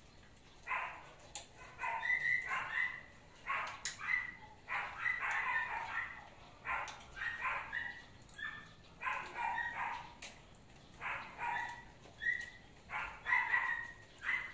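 A dog barking over and over in short barks, one or two a second with brief gaps.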